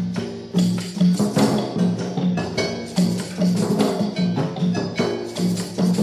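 Instrumental Argentine folk music from a 1968 film soundtrack, with percussion and a repeated low bass figure accenting a steady beat about once a second.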